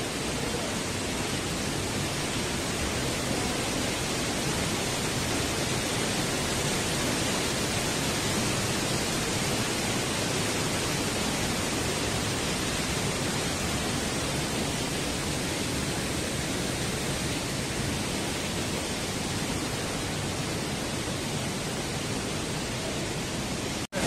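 Waterfall pouring down into a rocky gorge and stream: a steady, even rush of falling water.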